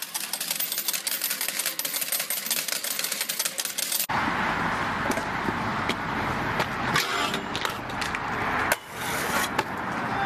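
A poker machine's coin hopper paying out, a fast rattling clatter of coins dropping into the tray, which cuts off suddenly about four seconds in. It is followed by the steady rush of a scooter's wheels rolling across skatepark concrete, with a few short knocks.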